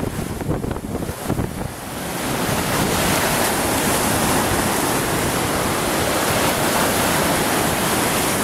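Lake Superior waves breaking and washing over a bare rock shoreline, with wind buffeting the microphone. About two seconds in, the sound grows into a louder, steady rush of surf.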